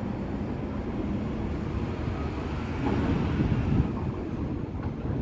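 Low, steady rumble of an R142 subway train still far off, approaching along the elevated track, swelling briefly about three seconds in.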